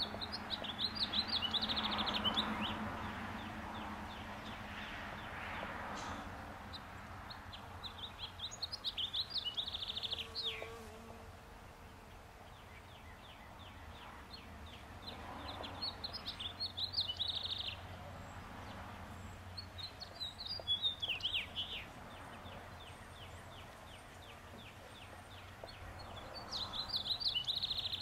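A songbird sings five quick, chattering phrases, each ending in a downward slur, with a fainter bird trilling between them. Under the song runs a low, steady hum of honey bees working the cherry blossoms.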